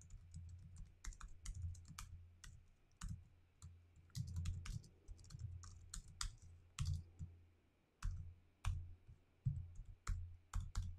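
Computer keyboard typing: irregular key clicks in short runs with brief pauses.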